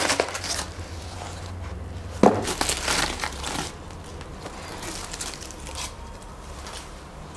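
Honeycomb kraft-paper packing wrap crinkling and rustling as it is pulled off a small product box and crumpled in the hands, loudest in a sharp crackle about two seconds in.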